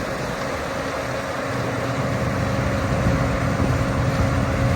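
Engine running steadily, a low rumble with a constant hum.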